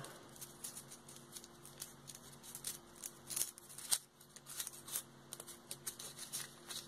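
A small folded paper slip being unfolded by hand: quiet, irregular paper crinkles and rustles, with a couple of sharper crackles three to four seconds in.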